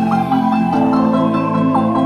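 Background music: an electronic track with a repeating mallet-like melody over held chords.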